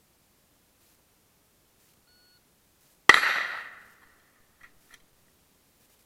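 Rifle shots: one sharp shot about three seconds in that rings and echoes away within a second, two faint clicks a little later, and a second shot right at the end.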